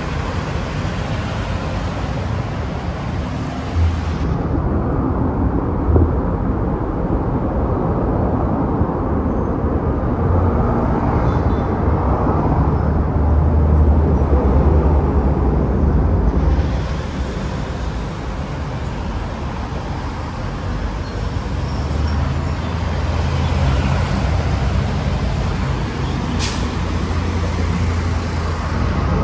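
Urban road traffic dominated by the diesel engines of city buses running in slow, dense traffic, with a steady low rumble and tyre noise. There is a short, sharp air-brake hiss near the end.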